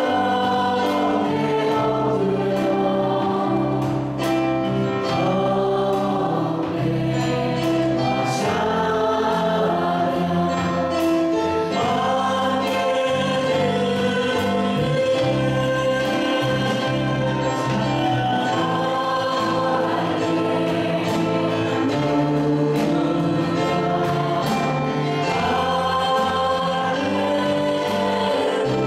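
Church praise team singing a gospel worship song in chorus, backed by electric bass guitar, a drum kit with cymbals, and keyboards.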